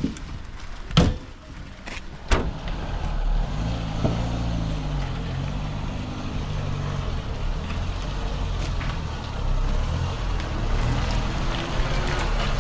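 A couple of knocks as firewood is loaded into a car boot, then a Peugeot 405's engine running as the car moves off, its pitch rising and falling.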